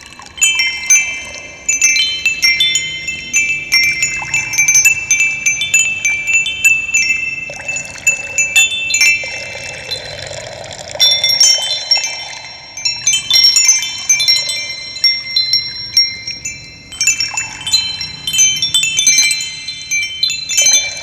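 Wind chimes ringing, many overlapping high, bell-like tones struck in quick irregular clusters, thinning briefly near the middle. A soft wash of running water lies underneath.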